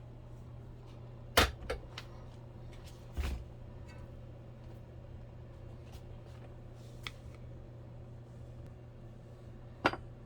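Kitchen clatter during biscuit making: a few sharp knocks, two close together about a second and a half in, another a couple of seconds later and a loud one near the end, over a steady low hum.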